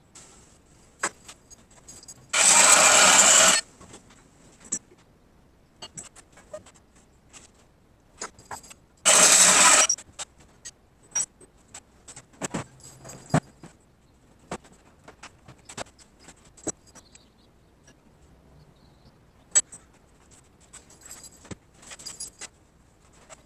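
Portable band saw running in two short bursts, about a second each, cutting strap steel. Between the bursts come scattered clinks and knocks of metal being handled on the bench.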